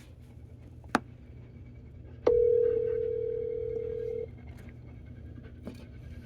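Telephone ringback tone heard down the line while a call is placed: a click about a second in, then one steady low ring lasting about two seconds, starting a little over two seconds in.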